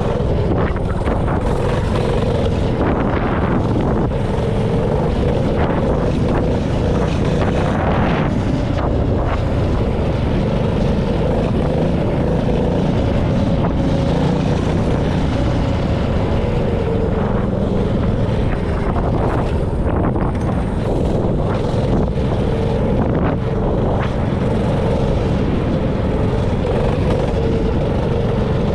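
Honda GX160 single-cylinder engine on a mini bike running steadily under way, its pitch wavering slightly.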